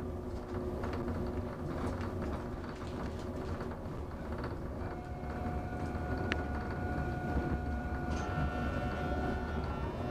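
Mont Blanc Express train running, heard from inside the passenger carriage: a steady low rumble of wheels on track. About halfway through, a steady whine joins it and holds to the end, rising slightly in pitch near the close.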